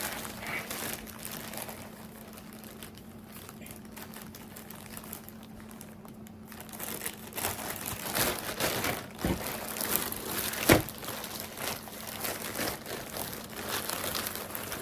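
Crinkling and rustling of packaging as a new backpack is handled and opened. It is faint for the first few seconds, then busier and louder, with a couple of sharp knocks past the middle.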